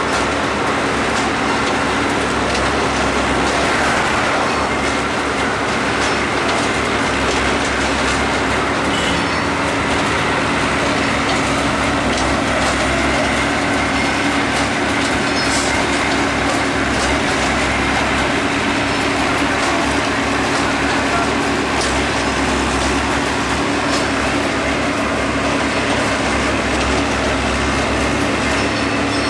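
Small on-track rail maintenance machine's engine running steadily as the machine creeps along the track.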